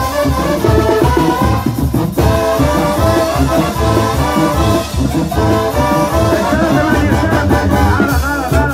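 Upbeat Latin band music with brass over a steady beat, and a voice singing.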